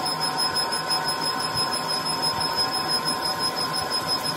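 Metal lathe turning a cylindrical compressor gas-jacket part: steady machine running noise with a constant high-pitched whine over it.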